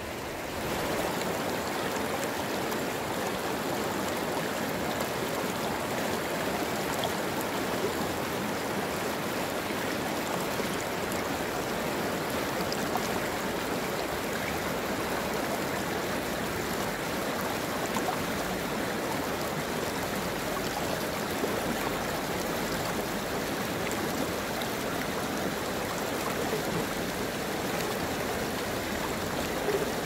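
Shallow mountain stream rippling over rocks: a steady rush of flowing water that steps up a little in loudness about a second in.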